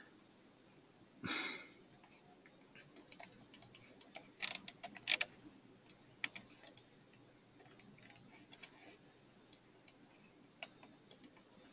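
Faint, irregular clicking of a computer mouse and keyboard, coming in loose clusters of small clicks, with a brief breath about a second in.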